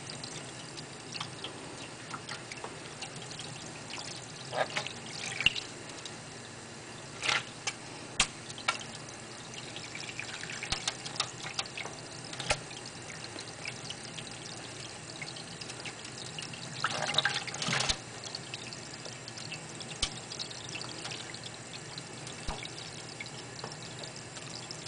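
Water from a kitchen sink sprayer running steadily onto a stainless steel sink, with several short splashy bursts as a sun conure bathing under it flaps its wet wings; the longest splashing comes about two-thirds of the way in.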